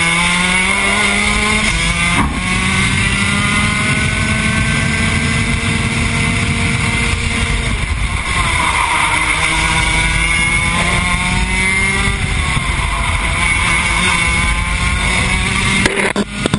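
Rotax Max DD2 kart's 125 cc two-stroke engine at racing revs, heard onboard. The pitch climbs and holds on the straights, falls about halfway through as the kart slows for a corner, then rises again. A few sharp knocks come near the end.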